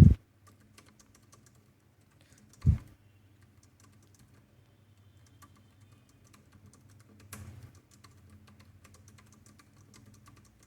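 Fast touch-typing on a computer keyboard: a quick, faint stream of key clicks. A single dull thump stands out about two and a half seconds in.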